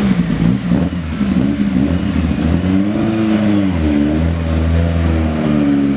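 BMW 2002 racecar's naturally aspirated four-cylinder engine being revved, its pitch rising and falling several times over a steady low running note.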